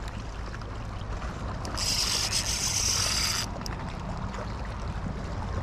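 A spinning reel's drag buzzing for about a second and a half, starting about two seconds in and cutting off abruptly, as a fish strikes and pulls line off; the angler takes it for a barracuda. Underneath, a steady rumble of wind on the microphone and lapping water.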